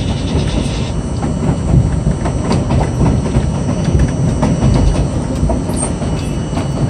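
R42 subway train running along the BMT Jamaica Line: a steady loud rumble with wheels clacking over rail joints.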